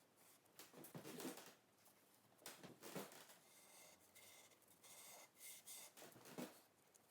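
Near silence broken by a few faint scratching strokes, a drawing tool working across a painting board.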